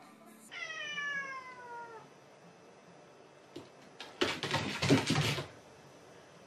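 A cat gives one long meow that falls in pitch. About four seconds in comes a loud, rough noisy burst lasting just over a second as a dog and a cat scuffle.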